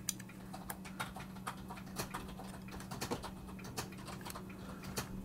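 Faint, scattered clicks and taps of a floppy disk drive's metal and plastic parts being handled, a few irregular knocks over a steady low hum.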